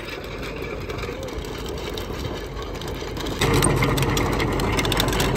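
Tractor engine running steadily at about 1400 rpm, driving a trenching machine as it digs, not labouring under the load. The sound gets suddenly louder about three and a half seconds in.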